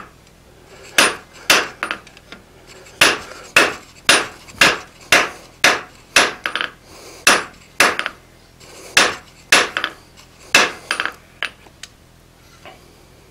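Hand hammer blows on hot steel on an anvil face, about two a second in short runs with brief pauses, drawing the bar's tang out into a long taper. The blows stop near the end.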